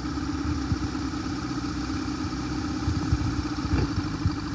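Boat engine idling, a steady low hum with an irregular low rumble as the boat creeps along at low throttle.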